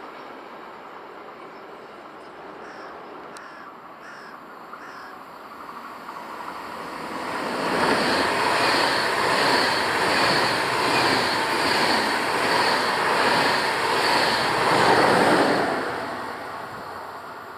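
A train passes the trackside at speed: rushing wheel-on-rail noise builds from about seven seconds in, holds with a regular pulsing beat, then fades away near the end. A few short calls are heard before it arrives.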